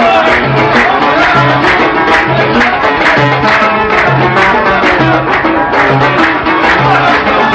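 Instrumental passage of Algerian chaabi music: an ensemble melody over a steady hand-drum beat, with a low drum stroke about twice a second.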